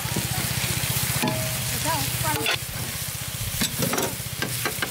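Spiced oil and onions sizzling in a large steel cooking pan while a long-handled metal ladle stirs them, with several sharp scrapes of the ladle against the pan, over a low steady hum.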